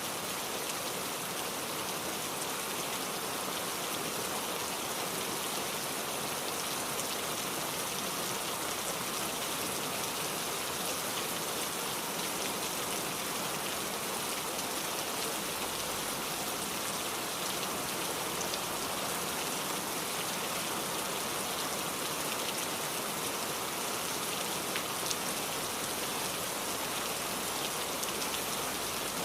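Steady rain falling, an even hiss of drops with occasional faint individual drop ticks.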